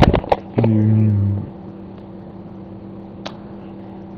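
A few sharp knocks, then a man's drawn-out hesitation sound held on one pitch for under a second, then a steady low hum with one soft click about three seconds in.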